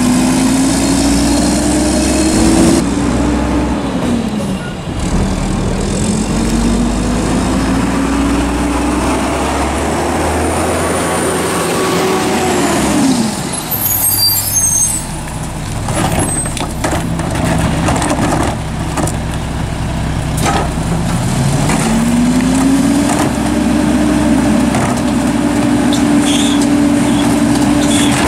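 Diesel engine of a Mack MR rear-load garbage truck revving up under load as the McNeilus packer runs, the pitch climbing for several seconds, holding, then dropping. This happens three times. Between the second and third rev-up there is a short air-brake hiss and a few knocks of carts and metal.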